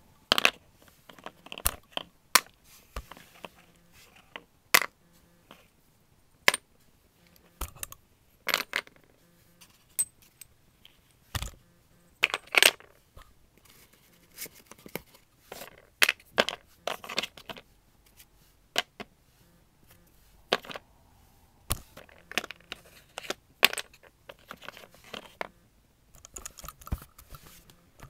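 Pastel sticks and a plastic pastel case handled: irregular sharp clicks and clatters of the sticks knocking against each other and the case.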